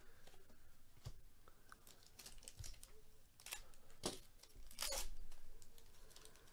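Foil trading-card pack wrapper crinkling and tearing as it is peeled open and the cards are slid out, in short irregular crackles with a louder crinkling stretch about five seconds in.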